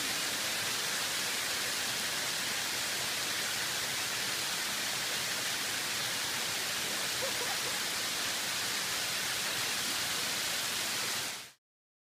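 Beușnița waterfall, water spilling over mossy rock ledges: a steady, even rush of falling water that fades out quickly near the end.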